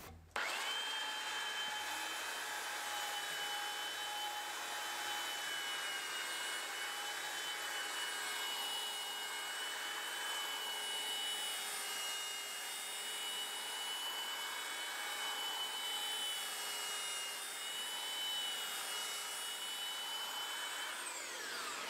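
Electric orbital sander with a dust-extraction hose running steadily on oak, a high motor whine over the sanding noise. Near the end the whine falls as the motor winds down.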